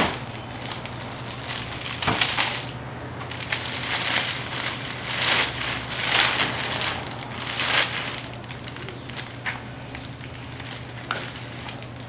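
Paper and plastic flower-bunch sleeves crinkling and rustling in irregular bursts as a wrapped bunch of roses is opened by hand. The handling is busiest in the first two-thirds and lighter near the end.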